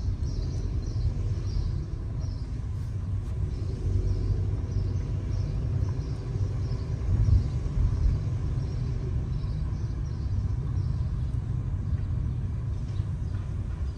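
Steady low rumble of a car driving on city streets: road and engine noise.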